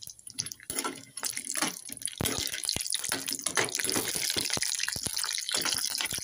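Sukuti (dried meat) sizzling as it fries in hot oil in a metal pan, with a metal ladle clicking and scraping against the pan as it is stirred. The sizzle grows louder and steadier about two seconds in.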